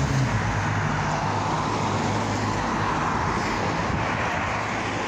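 Road traffic: cars driving past with steady tyre and engine noise, swelling as one passes near the middle and easing off toward the end.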